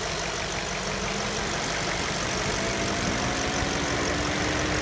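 Audi A8 4.2-litre V8 idling, with a steady humming tone from its broken crankcase ventilation valve over the engine noise; the hum creeps slightly up in pitch over the last couple of seconds.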